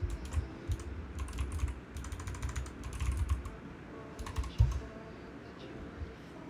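Typing on a computer keyboard: quick runs of keystrokes for the first three and a half seconds, then a few scattered, fainter keystrokes and a single dull thump about four and a half seconds in.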